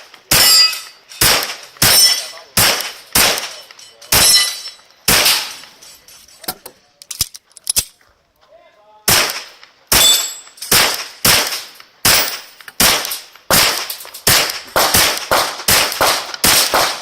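Glock 34 9mm pistol firing a long string of shots at steel targets, some shots followed by the ring of a hit plate. The shots come a little under two a second, stop for about two seconds near the middle, then resume faster, about two to three a second.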